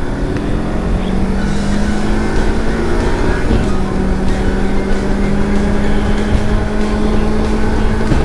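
Kawasaki Versys-X 300's parallel-twin engine running at a steady cruising speed under road and wind noise, with a brief break in the engine note about three and a half seconds in.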